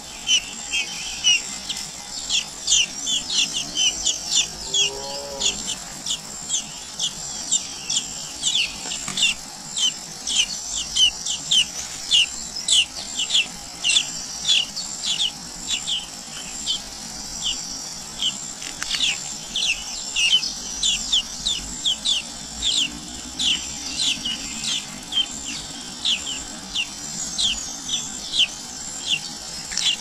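Nestlings begging in the nest: a steady run of thin, high, downward-slurred chirps, about two to three a second, over a steady high hiss.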